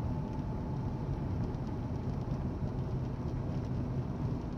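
Steady low road and engine noise of a moving car, heard from inside the cabin by a dashcam.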